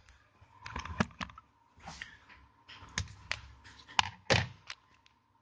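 Irregular light clicks, taps and a few sharper knocks of disassembled Samsung Galaxy S5 smartphone parts being handled and set down on a work surface.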